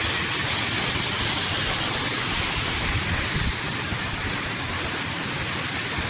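Waterfall spilling from an irrigation tank: water pouring down in a constant, even rush.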